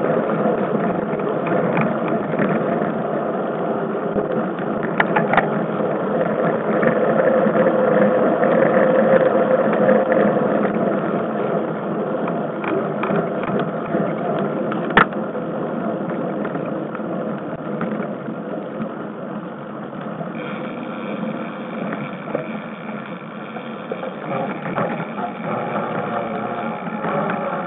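Riding noise of a mountain bike on dirt singletrack, heard through the bike- or helmet-mounted camera: a steady rough rumble of tyres and rattling bike and mount, with a few sharp knocks, the loudest about halfway through. A thin steady tone joins about three-quarters of the way in.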